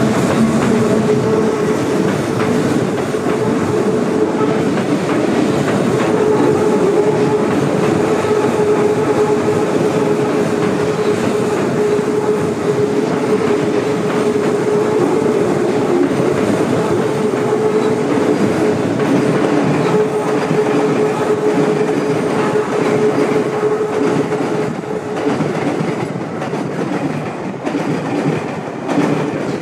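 Keikyu Line electric train running past, its wheels clattering over the rail joints, with a steady hum throughout; the sound thins out and fades near the end as the train moves away.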